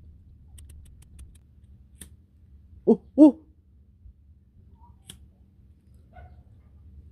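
A disposable lighter's flint wheel flicked a few times with sharp clicks, not catching. About three seconds in come two short voiced calls close together, the loudest sounds.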